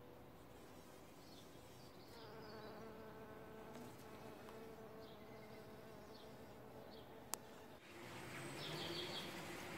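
Bees buzzing around the flowers of a small climbing rose: a steady, low hum that grows louder about two seconds in. A single sharp click comes near the end.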